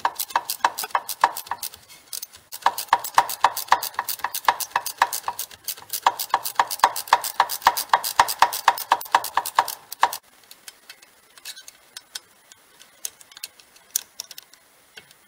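Ratchet wrench clicking fast and evenly, about six clicks a second, as it turns a socket on a BMW E60 front brake caliper bolt. It pauses briefly once and stops about two-thirds of the way through, leaving a few light metal ticks.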